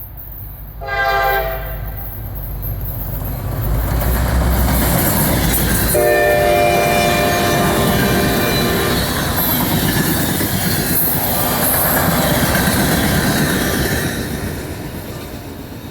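EMD GP38-2 diesel locomotive passing with its air horn sounding: a short blast about a second in, then a longer blast of about three seconds midway. Under the horn the locomotive's engine rumbles and the wheel-on-rail noise of the passing train swells and then fades near the end.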